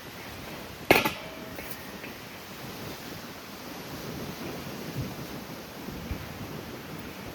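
Steady outdoor wind noise, with a single sharp knock about a second in that rings briefly, and a few soft low thumps later on.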